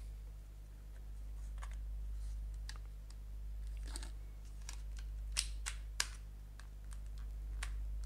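Scattered light clicks and taps, about eight of them, with three sharper ones close together near the middle, over a steady low hum.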